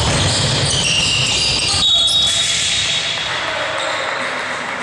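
Court sounds of a basketball game: sneakers squeaking on the gym floor in short high chirps, over running footsteps and the ball bouncing.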